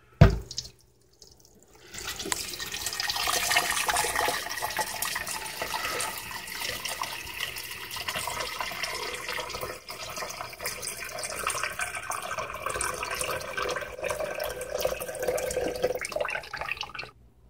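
A sharp click just after the start, then tap water running steadily from a faucet for about fifteen seconds, starting about two seconds in.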